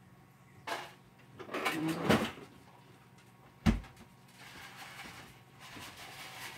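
Household handling noises: rustling and clattering for a moment, then a single sharp knock a little over three and a half seconds in.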